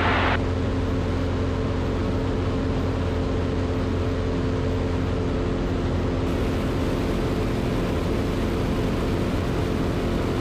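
Zenith CH 750 Cruzer light aircraft's piston engine and propeller droning steadily in flight, heard inside the cockpit.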